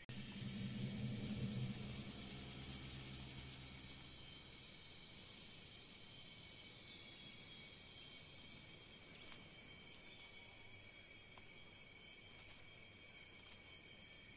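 Insects, likely crickets, chirping in a steady high-pitched chorus, one voice pulsing evenly. A low hum sounds under them for the first few seconds.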